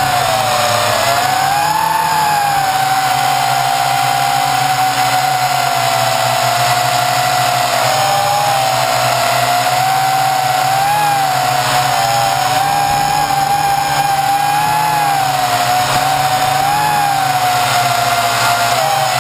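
RC quadcopter's electric motors and propellers whining at close range from a camera mounted on its frame. Several near-equal tones weave slightly up and down as the motors adjust speed in flight.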